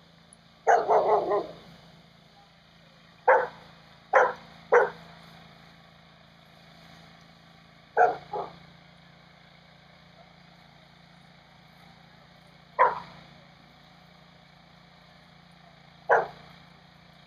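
A dog barking: a quick run of barks about a second in, then single and paired barks every few seconds, over a steady low hum.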